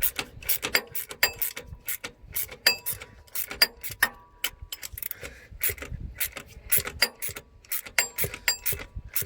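Ratchet wrench clicking in quick strokes, about three clicks a second, as it turns the adjusting bolt that tensions a drive belt on a 1995 Cummins truck engine.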